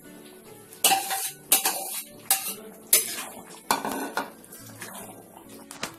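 Metal spatula clanking and scraping against a metal kadhai as fried jackfruit pieces are stirred into a thick masala gravy. It comes as a series of sharp knocks, roughly one every second, with softer scraping between them.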